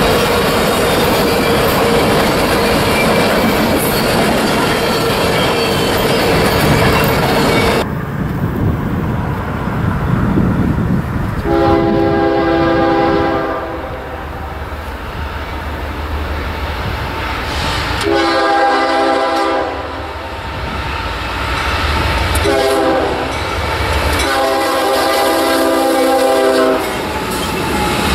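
Freight cars rolling past with a faint steady wheel squeal. Then a CSX GE ES40DC locomotive sounds its multi-chime air horn in the long, long, short, long grade-crossing pattern over the low rumble of its approach.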